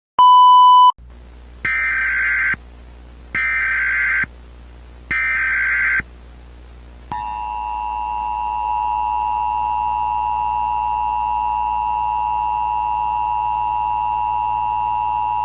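Emergency Alert System tones: a short, loud beep, then three identical bursts of SAME header data, then the steady two-tone EAS attention signal, which starts about seven seconds in and holds for about eight seconds. The sequence announces an incoming emergency alert.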